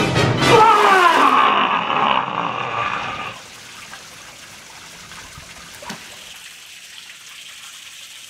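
Music ends with a falling glide in pitch that fades out over the first three seconds, leaving a quieter steady trickle of water from a fountain spout pouring into a pond.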